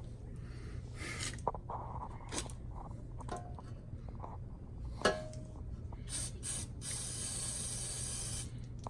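Aerosol can of WD-40 spraying in several short bursts, then one longer spray of about a second and a half near the end: penetrating oil put on exhaust bolts and fittings to loosen them. A single sharp knock about five seconds in.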